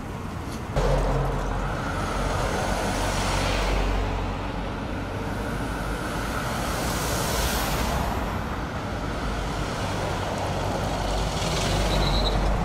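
Road traffic noise: a steady low engine rumble with vehicles passing by, about twice.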